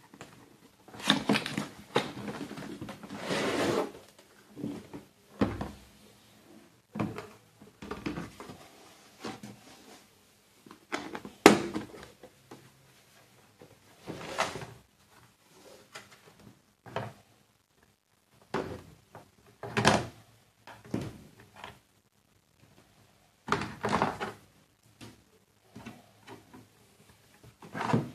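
Unpacking noises: a cardboard box being slid open and handled, then a hard plastic carrying case being opened, with irregular knocks, scrapes and clacks and one sharp click about eleven seconds in.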